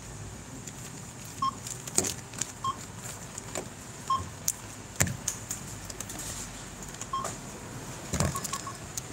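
Supermarket checkout barcode scanner beeping as items are scanned: short, single-pitched beeps, about six in all and a second or more apart, with a quick cluster near the end. Items knock and clatter on the metal counter between the beeps.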